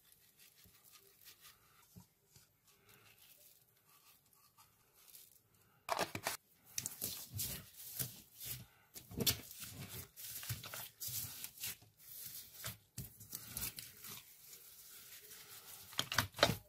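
Slime covered in small foam beads, pressed and kneaded by hand: dense crackling and squishing in many short bursts, starting about six seconds in after a few seconds of faint ticking as the beads are sprinkled on.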